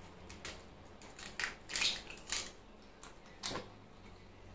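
A hen's egg being broken open by hand over a bowl: a few faint clicks and crackles of the shell as it is pulled apart.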